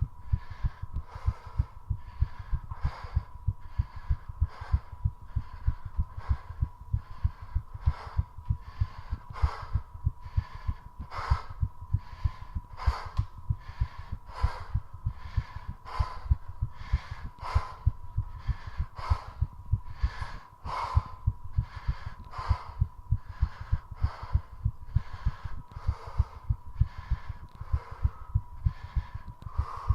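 Fast human heartbeat, a rapid, even run of deep thumps, with quick heavy breaths over it and a faint steady whine underneath: the heart racing under the exertion of continuous squats.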